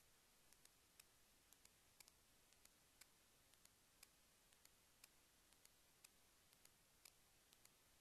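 Near silence with faint ticking: a sharper tick about once a second, with lighter clicks in between.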